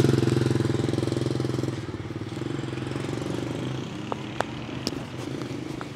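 Motorbike engine running steadily as the bike moves off, fading away over the first two seconds. A few faint ticks follow.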